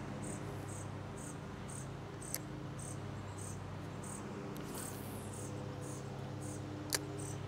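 Insects chirping in short high-pitched pulses about twice a second, over a steady low hum; two sharp clicks a few seconds apart.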